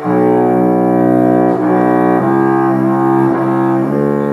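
A low bowed string instrument playing a slow line of long, held notes that change pitch several times.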